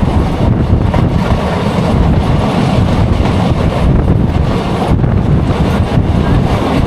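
Passenger express train running fast, its wheels and coaches rumbling loudly on the track, with wind buffeting the microphone.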